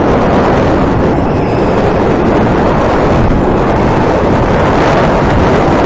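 Electric indoor go-kart at speed, heard from a camera mounted on the kart: a loud, steady rumbling noise of tyres, chassis vibration and air, with no clear engine or motor pitch.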